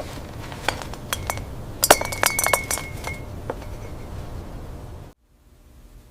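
Glass Christmas ornaments clinking against one another in light, scattered taps. A quick cluster of clinks comes about two seconds in, one of them ringing on briefly. The sound cuts off suddenly about five seconds in.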